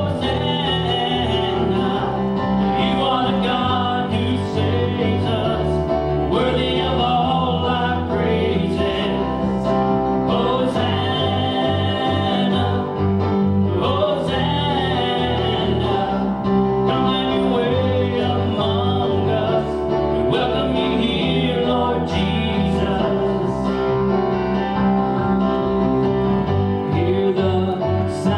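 Gospel song with a singing voice over guitar and a steady bass line, in a country style.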